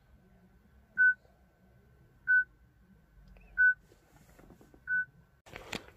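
Citroën RD4 car radio beeping: four short single-pitched beeps, evenly spaced about every 1.3 seconds. The beeping is the sign that a diagnostic session has been opened on the radio.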